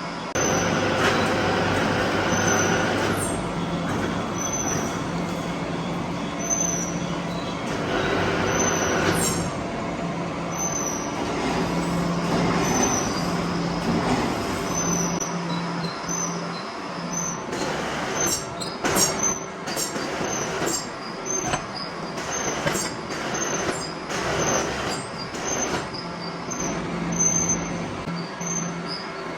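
Metalworking machinery running in a machine shop: a steady mechanical hum with a faint tick repeating about every second and a half. In the second half comes a run of sharp metallic clicks and knocks.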